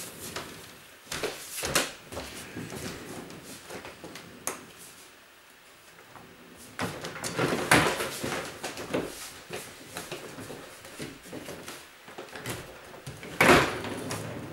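Boxes and belongings being shifted and set down in a small room: scattered knocks and scraping, with a busier stretch past the middle and one sharp knock near the end.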